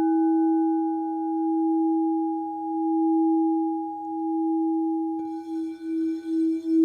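Crystal alchemy singing bowls ringing on in a long sustained tone that swells and fades slowly. About five seconds in another bowl is struck, adding a brighter ring, and the pulsing quickens.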